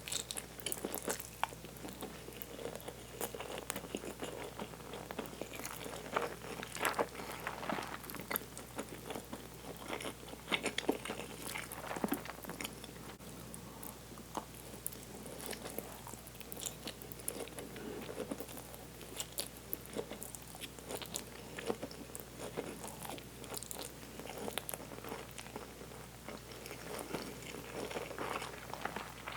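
A person eating and chewing close to the microphone, with many small, sharp, irregular mouth clicks and bites.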